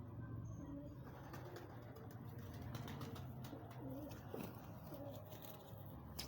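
Pigeons cooing: a few low, wavering coos around the middle, with faint scattered clicks.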